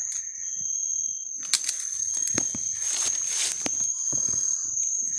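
Rustling and scattered sharp knocks of a person moving about in dry leaf litter and undergrowth, over a steady high-pitched insect trill.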